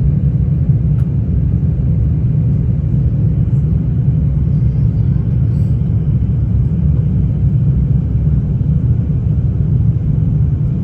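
Steady low rumble of an Air France Airbus A350 airliner, unchanging in level.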